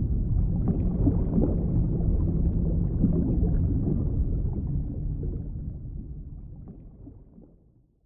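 Low, rumbling underwater ambience with faint crackling and bubbling, fading out over the last few seconds.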